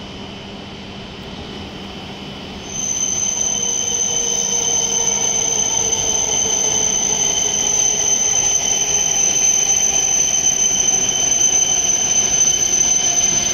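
W7 series Shinkansen train pulling into the platform and slowing. A loud, steady, high-pitched squeal sets in suddenly about three seconds in, over the rush of the passing cars. Beneath it, lower whines slide down in pitch as the train decelerates.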